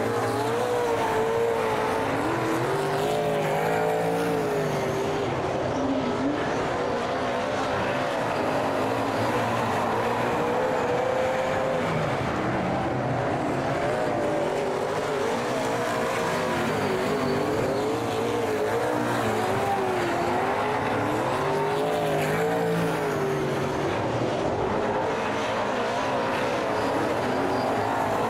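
Several speedway super saloon race cars running their V8 engines on track, their overlapping engine notes continuously rising and falling as they rev on and off the throttle.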